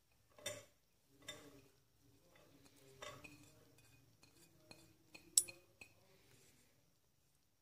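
Light clinks and knocks of glass on glass and a steel spoon as chopped onion is tipped from one glass bowl into another: about half a dozen separate taps with a short ring, the sharpest about two-thirds through.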